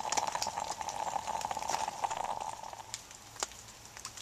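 Bialetti moka pot gurgling and hissing on a small camp stove as the coffee comes through, nearly ready; it fades out about two and a half seconds in, leaving a few faint ticks.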